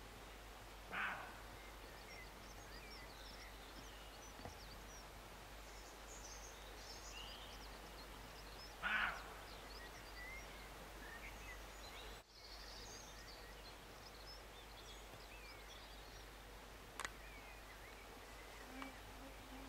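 Roe deer barking: two short barks, one about a second in and a louder one about nine seconds in.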